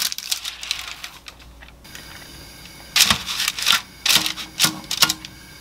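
Parchment paper crinkling as it is pressed flat into a frying pan, then metal tongs clicking a few times as a mackerel fillet is laid on the paper.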